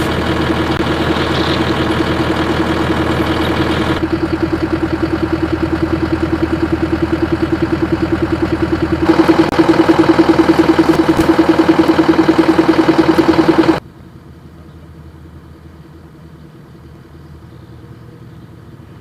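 A large engine running steadily with a fast, even pulse, cutting off abruptly about fourteen seconds in and leaving a much fainter rumble.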